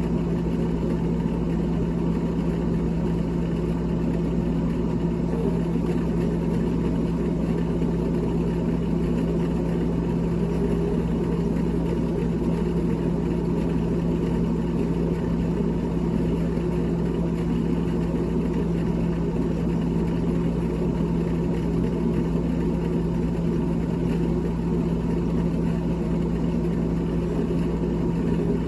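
Steady electric motor hum with a strong low tone and a few fainter higher tones, unchanging throughout.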